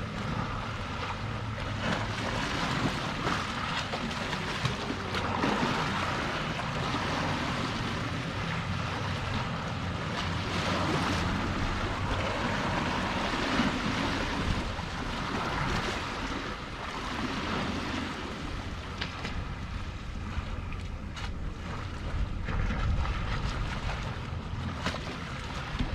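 Sea waves washing onto the shore in swells every few seconds, with wind on the microphone adding a low rumble.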